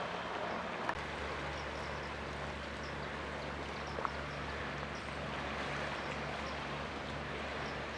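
A steady low motor hum under an even rushing noise, the hum changing slightly about a second in.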